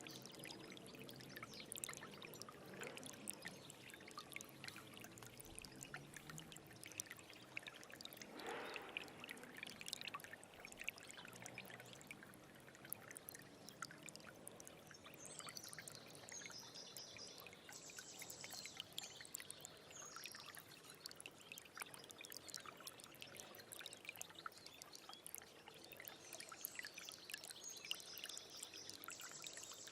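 Stream water trickling steadily, with a bird chirping in short quick runs of notes about halfway through and again near the end.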